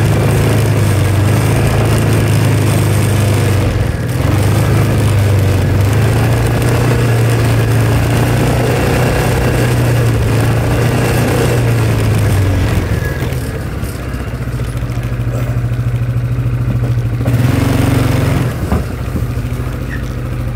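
Vehicle engine running steadily as it is driven, a low drone that shifts slightly in pitch a few times and drops a little in loudness about two-thirds of the way through.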